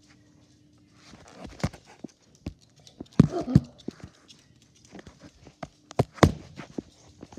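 Scattered taps and knocks on a hard wood-look floor, with a cluster about three seconds in and the loudest strikes about six seconds in.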